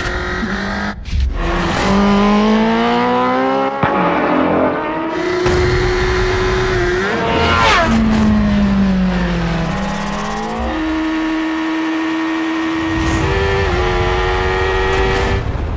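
Honda CBR1000RR Fireblade inline-four engine revving hard on track: pitch climbing with breaks at the gear changes, a quick pass-by about halfway through, then falling revs and a steady high-rev run.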